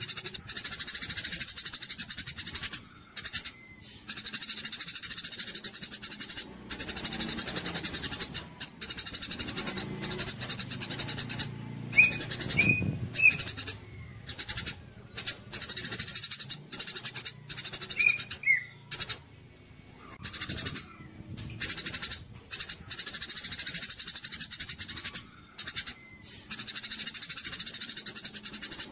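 Songbird singing a rapid, high-pitched chattering trill in long bursts broken by short pauses, with a few brief lower whistled notes midway.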